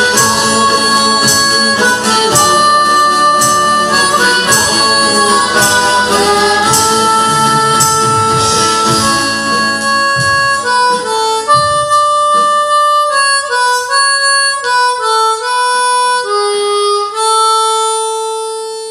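Live folk band playing a dance tune led by harmonica, with drums and acoustic guitar underneath. About ten seconds in the band drops out and the harmonica carries on alone in long held notes, fading at the end.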